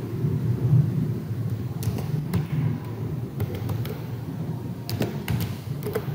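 A steady low rumble with about a dozen sharp, short clicks in small clusters starting about two seconds in.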